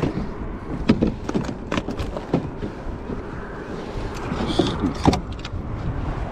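Irregular knocks and clunks of fishing gear being handled on a plastic kayak, with a steady low rumble underneath.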